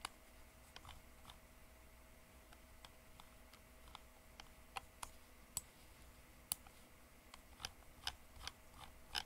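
Irregular sharp clicks from a computer mouse as the map is being navigated, over a faint steady hum.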